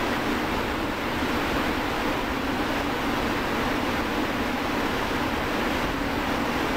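Steady factory background noise: an even, unchanging rush with a low hum beneath it and no distinct events.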